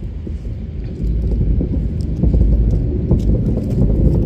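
Low rumble of a small vehicle running and moving off, with rattles, getting louder about a second in and again a little after two seconds.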